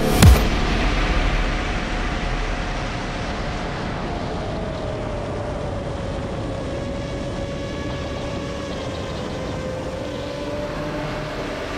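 5-inch FPV quadcopter's brushless motors (T-Motor F40 Pro II 2400KV) and three-blade props whining, with air rushing past the onboard camera's microphone. The motor pitch dips in the middle and rises again with throttle. A sharp click or knock comes just after the start.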